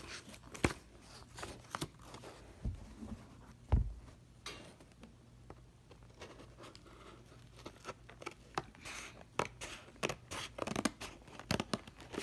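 A Pokémon trading card theme deck's packaging being opened by hand: scattered snips, scrapes and crinkles, with a thump about four seconds in and a flurry of small clicks near the end.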